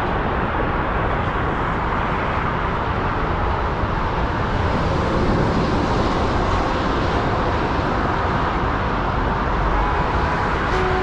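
Steady downtown street ambience: continuous traffic noise, a mix of rumble and hiss with no single standout event.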